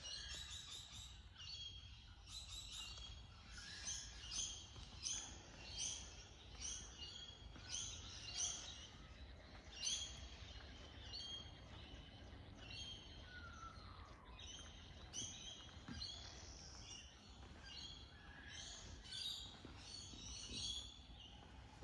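Small birds chirping, a quick series of short high calls repeating every second or so, over a faint steady low rumble.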